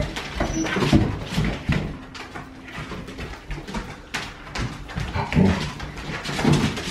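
Siberian husky puppies and adult huskies playing: scattered short yips and whines, with claws clicking on the hard floor.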